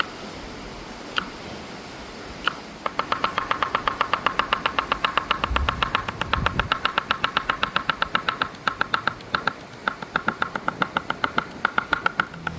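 Rapid knife chopping on a cutting board, about seven quick strokes a second, starting about three seconds in after a couple of single knocks and keeping an even pace.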